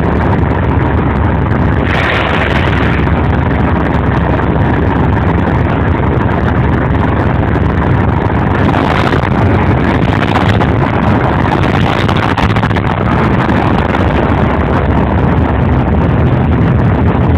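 Class 37 diesel-electric locomotives running under power as they pull slowly away, a loud, steady engine drone through a mobile phone's microphone.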